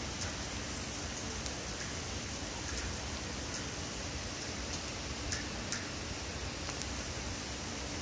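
Steady rain falling on a forest campsite, with a few sharp single drops landing close by.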